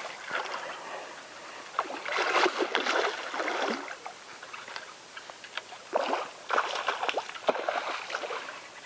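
Water splashing in irregular spells as a hooked fish thrashes at the surface while being played on a spinning rod near the bank.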